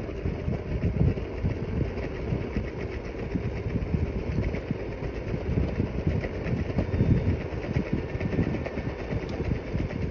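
Scooter riding along a road, its motor running steadily with a rapid, rough low pulsing.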